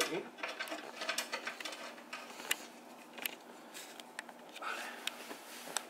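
Scattered light clicks and small knocks as hands handle and fit parts on a benchtop band saw's table, over a faint steady hum.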